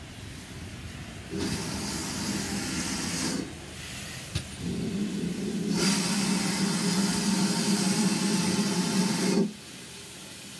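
Steam hissing from GWR 4575-class prairie tank engine 5541, in two long bursts of about two and five seconds, each starting and cutting off sharply, with a steady low tone under the hiss. A single click comes in the gap between them.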